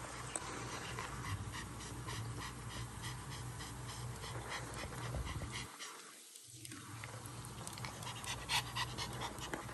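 Pomeranian puppy panting quickly and rhythmically, about three to four breaths a second. The sound briefly drops away a little past the middle.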